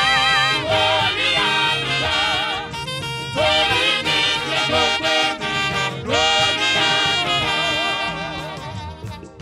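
Live band music led by a section of saxophones with trumpets, playing a lively swing-style tune over drums and keyboard. The horns hold notes with a wavering vibrato between quicker phrases.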